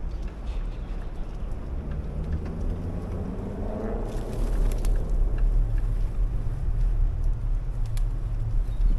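Wind rumbling on the camera microphone of a rider moving along a path, growing louder toward the end. A brief hum swells and fades about four seconds in.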